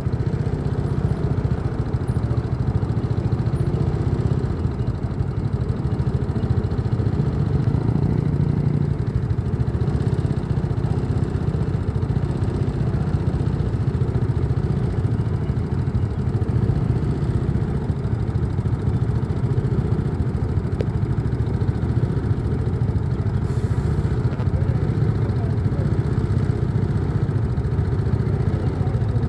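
Diesel-electric locomotive QSY 5250 of the State Railway of Thailand, a Chinese-built CDA5B1, running with a steady, deep engine rumble that holds an even level throughout.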